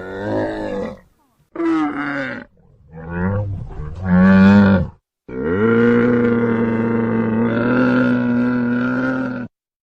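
Camel calling: four short pitched calls, then one long, steady call lasting about four seconds that stops abruptly near the end.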